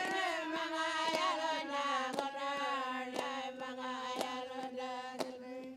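Anangu inma song: chanting on a falling melody that settles onto a long held low note near the end, with clapsticks struck about once a second.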